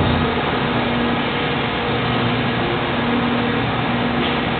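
Hydraulic molding machine running steadily, its pump and motor making a constant mechanical noise with a low hum that swells and fades several times.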